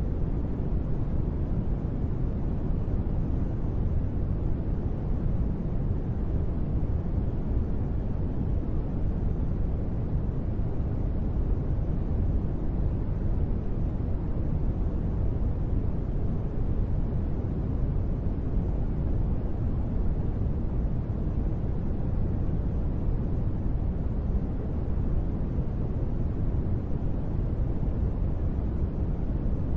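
Steady, even noise played as a sleep sound and sold as gentle rain, deep and full in the lows with little hiss on top. No separate drops, gusts or changes stand out.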